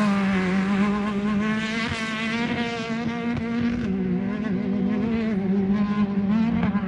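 Off-road race car engine, a Class 10 car, running hard at high revs with a sustained, fairly steady note. The pitch steps slightly up and down, dips briefly about four seconds in and climbs again near the end.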